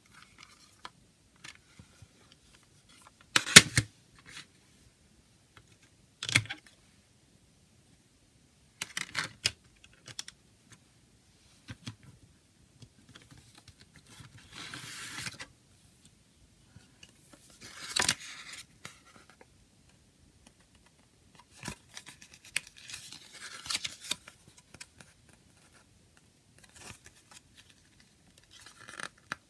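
A plastic CD jewel case being handled and opened: scattered sharp clicks and knocks of the case and its hinge, the loudest a few seconds in, with spells of rustling and scraping as the paper booklet is slid out and handled.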